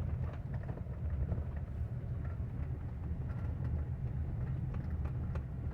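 Steady low road and running rumble inside a moving Kia Sportage's cabin, with a few faint, scattered clicks. These are the small suspension noise on an uneven road that the owner suspects comes from the suspension or the steering box.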